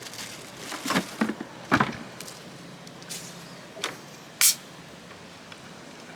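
A few scattered knocks and clicks of things being handled, over a steady low background. The sharpest is a brief high click about four and a half seconds in.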